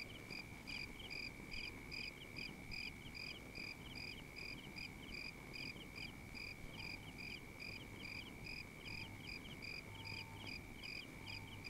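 A cricket chirping steadily and faintly, a short high chirp about two or three times a second, as night ambience.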